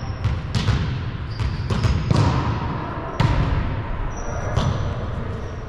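Volleyball being hit during a rally in a large, echoing gym: several sharp slaps of hands on the ball. They are mixed with high squeaks, one held for over a second near the end, that match sneakers on the hardwood court.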